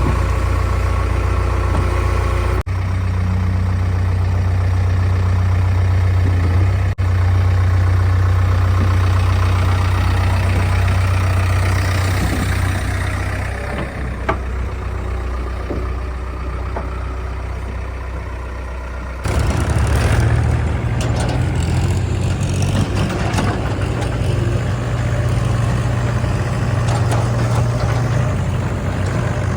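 Heavy diesel engines of a backhoe loader and tractor running with a steady low drone. The sound shifts abruptly about 3, 7 and 19 seconds in.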